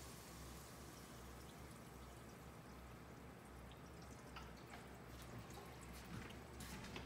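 Faint water trickling and dripping in a reef aquarium sump, over a low steady hum.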